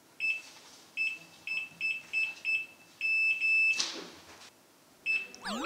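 Digital door lock keypad beeping as the code is entered: six short beeps, one per key press, then a longer beep. A brief burst of noise follows, and one more short beep comes near the end.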